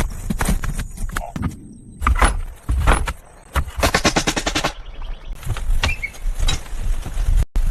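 Irregular knocks and clatters, with a fast run of about ten taps a second about four seconds in.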